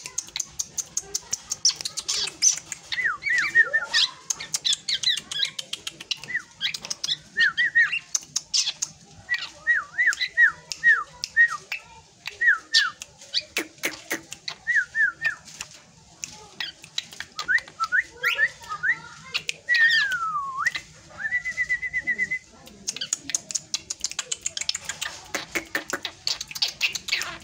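Young drongo singing a busy, varied song of sharp chips, quick runs of repeated whistled notes and squawky calls. Later one whistle glides down in pitch and is followed by a short steady whistle.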